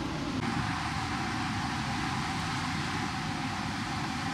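Steady rushing noise with no separate events, of even strength throughout.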